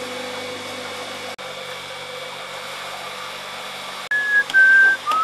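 Electric outboard motor of a homemade solar-powered boat running steadily under way, with wind and water noise. About four seconds in, a person starts whistling a few louder, held notes.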